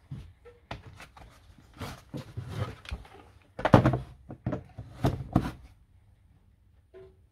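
Hard plastic clatter of a Milwaukee M18 battery, multimeter and test leads being moved about on a wooden workbench, then the M18 battery pack knocking as it is slid and clicked onto a Milwaukee Rapid Charge charger, with the loudest knocks about four and five seconds in.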